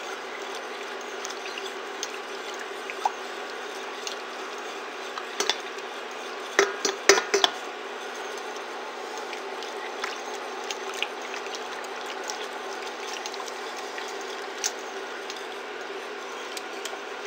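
Plastic stirrer scraping and knocking against a stainless steel pan as borax is stirred and dissolved in hot water, with light clicks throughout and a cluster of louder knocks about six to seven and a half seconds in. A steady hum sits underneath.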